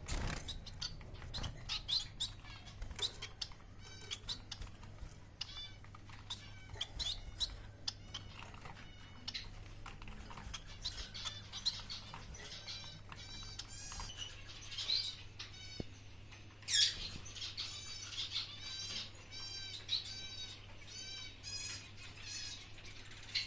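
Pet birds chirping in many short, quick, repeated calls that grow busier in the second half, mixed with scattered small clicks.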